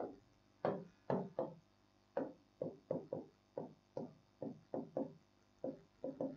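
Chalk writing on a blackboard: an uneven run of short taps and knocks, about two or three a second, one for each stroke of the chalk.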